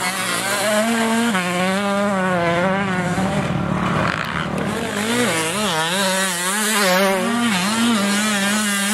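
Two-stroke dirt bike engine revving high and hard, its pitch dropping about a second in and then dipping and rising several times past the middle as the throttle is worked.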